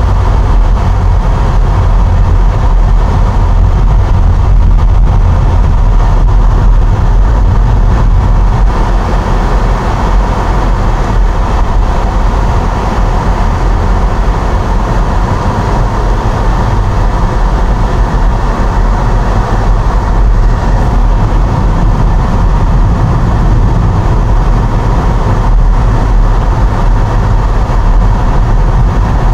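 A car's engine and tyre noise heard from inside the cabin while driving: a steady, loud low rumble with no clear changes.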